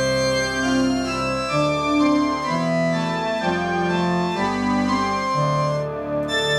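Roland JX-3P synthesizer with the Kiwi-3P upgrade playing its Organ 3 preset: a played passage of held organ-like chords, changing about every second.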